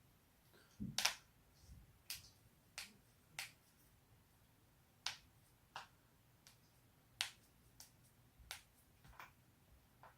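Human joints cracking: a string of about a dozen sharp pops at uneven gaps of roughly half a second to a second and a half. The loudest comes about a second in, together with a soft low thump of body movement.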